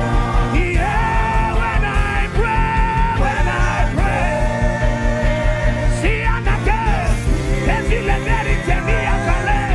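Gospel worship music: a steady pulsing beat under sustained chords, with a voice singing long, sliding notes.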